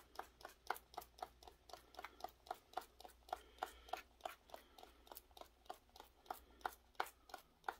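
Quick, light dabbing taps, about four to five a second, as glue is dabbed onto a craft-terrain surface covered in coffee-ground dirt.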